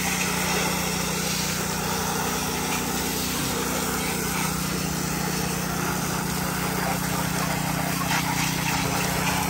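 Pressure washer's small engine running steadily, with the hiss of the water jet from the spray gun rinsing house siding.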